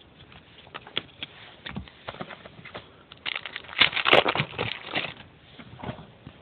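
Hands handling trading cards and their pack wrappers: scattered light clicks and rustles, then a dense burst of crinkling about three seconds in that lasts about two seconds.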